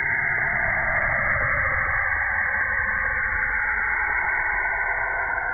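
Saturn's radio emissions rendered as sound: a steady, static-like rushing hiss that starts abruptly and holds constant.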